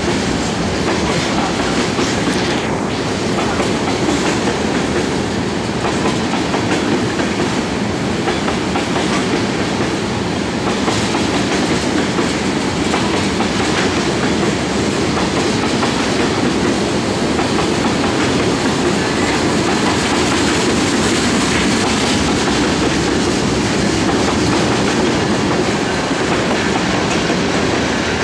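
Freight train of LPG tank cars rolling past, a steady rumble of steel wheels on the rails.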